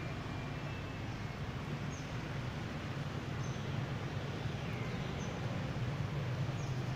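Steady low outdoor background rumble, with faint, short high chirps about every second and a half.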